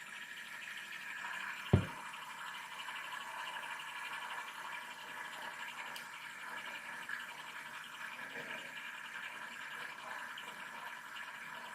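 Fidget spinner spinning freely, its bearing giving a steady, quiet whir. A single sharp click about two seconds in.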